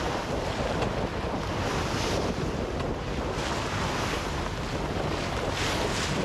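Wind buffeting the microphone over the rush and wash of waves along a sailing boat's hull as it sails, the water noise swelling briefly now and then.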